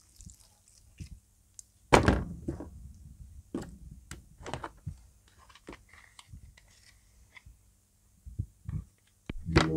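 Broken hard plastic toy pieces being handled in a plastic tray: scattered knocks and light clatters, with one loud thunk about two seconds in. Music starts right at the end.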